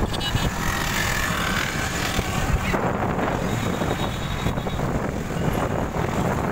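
Wind buffeting the microphone over steady road and traffic noise, recorded from a moving vehicle in city traffic with motorbikes and cars passing close by.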